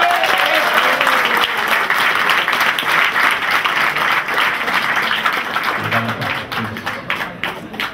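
Tennis crowd applauding a point, a dense clapping that starts suddenly and thins out near the end.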